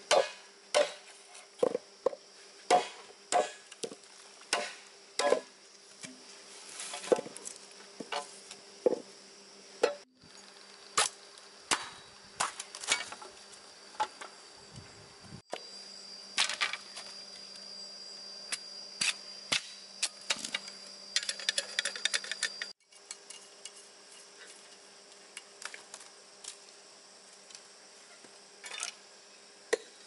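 Green bamboo being chopped and split with a blade across a wooden log: sharp knocks about once a second for the first ten seconds, then more scattered strikes and cracks. A steady insect buzz runs underneath.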